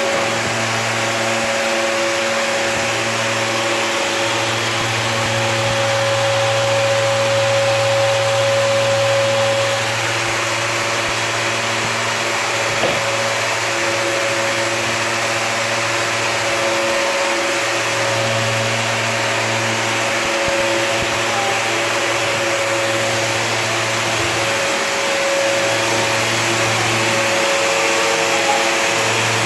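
Vacuum cleaner running steadily: a constant motor hum over the rush of air, its level swelling and easing slightly now and then.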